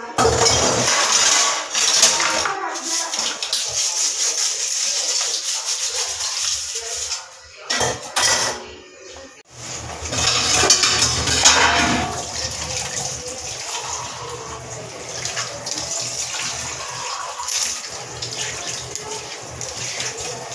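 Water running and splashing at a kitchen sink as dishes are washed and the counter is wiped down. The water sound drops out briefly about eight seconds in, then comes back.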